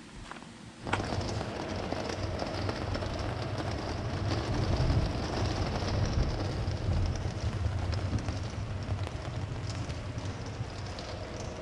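Storm heard from inside a pop-up camper: heavy rain on the canvas with a steady low rumble, starting suddenly about a second in.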